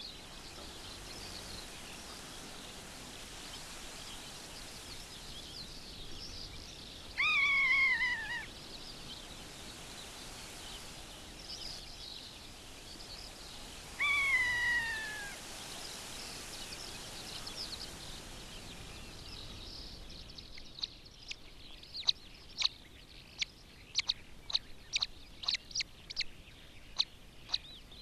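Long-legged buzzard giving a drawn-out mewing call that falls in pitch, twice, with faint small bird chirps in the background. From about two-thirds of the way in, a quick irregular run of short, sharp high chirps takes over.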